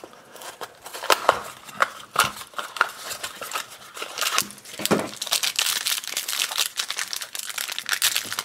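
Cardboard blind box of a Minecraft mini-figure being opened by hand, then the foil wrapper inside crinkled and torn open. Irregular crackles and rustles throughout.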